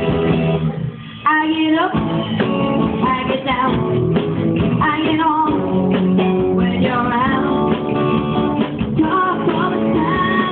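Live rock band playing: electric guitars, keyboard and drum kit, with a singing voice. The sound dips briefly about a second in, then the band carries on at full level.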